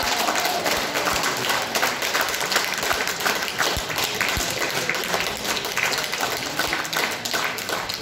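Audience applauding, with many hands clapping in a dense, steady patter. A few dull thuds fall here and there through it.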